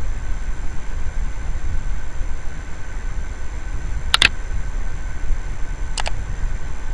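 Computer mouse clicks over a steady low rumble and hum: a single click about four seconds in, then a quick double click near the end.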